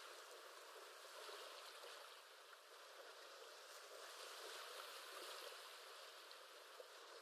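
Faint background recording of ocean waves: a steady rushing wash of water that swells gently twice.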